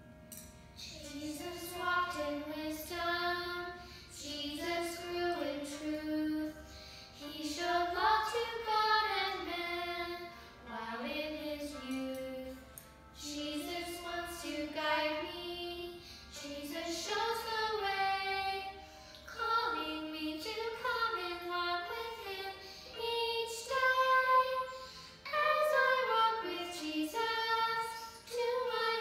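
A woman and a child singing a Primary children's song together over recorded accompaniment, in phrases of a few seconds with short breaths between them.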